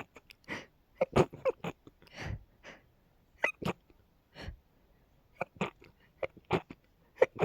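A woman's rapid sneezing fit: a long string of short, quick sneezes, sometimes several a second, with breathy gasps between them.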